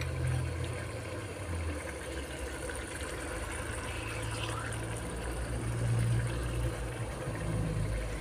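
Steady low hum, with faint scrapes and taps of a steel spoon scooping keema curry from a wok into a ceramic bowl.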